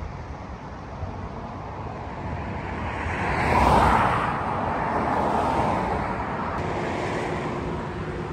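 Vehicle and road noise, swelling to a peak about four seconds in as a vehicle passes, then easing back to a steady rush with a faint hum near the end.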